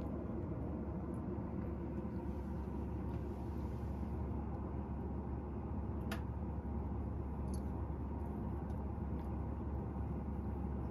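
Steady low background hum, with a few faint soft clicks from a cat licking and grooming its fur.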